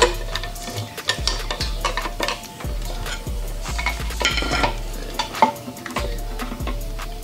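Hand tools and metal engine parts being handled: many small clicks and clinks, with a few brief ringing metallic tones around the middle.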